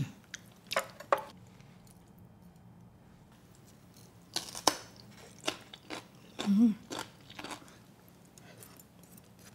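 Crisp, crunchy chewing of kimchi in a series of short bites, with a brief hummed "mm" of enjoyment partway through. A few light clicks come near the start.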